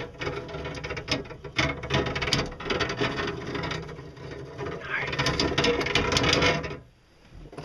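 Newly installed steel pedal-drive gears turned by hand, the teeth of the large gear clicking rapidly through the mesh with the small pinion. The mesh is still rough because the teeth have not yet worn in. The clicking stops abruptly near the end.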